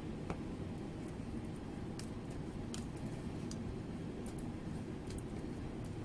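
Tarot cards being dealt and laid down on a glass tabletop: a scattering of faint clicks and taps over a steady low hum.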